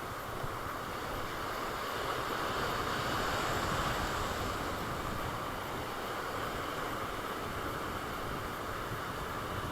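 Sea surf washing on the shore, with wind buffeting the microphone; the wash swells a little a few seconds in.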